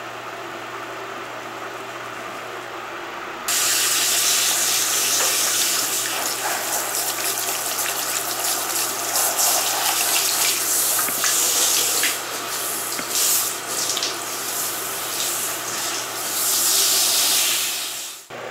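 A handheld shower head spraying water onto a wet cat's fur. It is a loud hiss that comes on suddenly about three and a half seconds in, shifts in level as the spray moves over the cat, and cuts off just before the end. Before the water comes on there is only a steady low hum.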